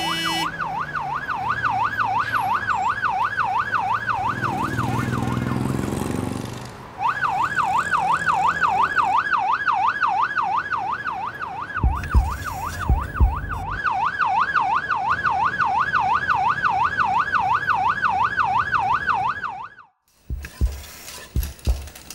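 Ambulance siren sounding a fast up-and-down wail, about three sweeps a second. It breaks off for about a second near the quarter mark, starts again, and cuts off suddenly near the end. A few low thumps come just past the middle.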